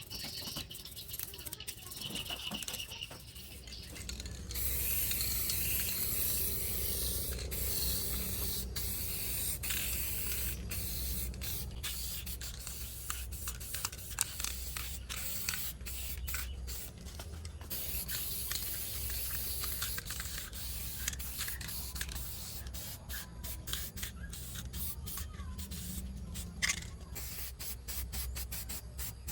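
A spray hissing steadily for about thirteen seconds, starting a few seconds in, with scattered clicks and taps before and after it.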